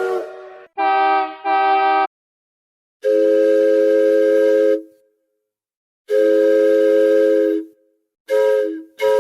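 Train whistle sounding a chord of several steady tones in a pattern of blasts with gaps of silence between them: two short, two long, then two short.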